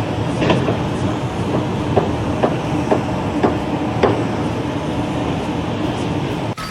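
Steady mechanical rumble with a sharp clack about twice a second through the first four seconds.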